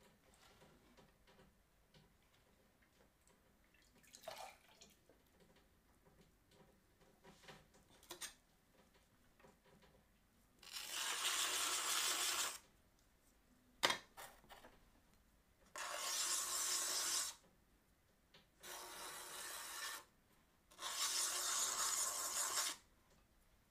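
Faint rubbing of hands and tools on clay turning on a potter's wheel, then four bursts of steady hiss, each one to two seconds long, with a single sharp click between the first and second.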